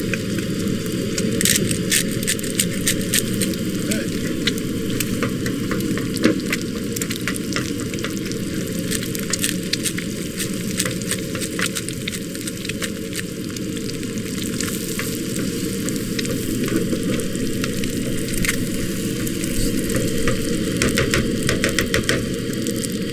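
Eggs frying and sizzling in a skillet on a propane camp stove, with scattered clicks and scrapes as a wooden spoon stirs and scrambles them and pepper is ground over the pan.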